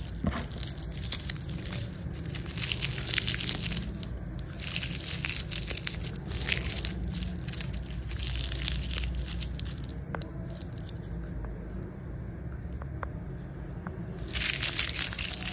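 Plastic twist wrappers on a handful of hard candies crinkling and rustling as hands pick them up and jiggle them, in bursts of a second or two, quieter for a few seconds before a last loud burst near the end.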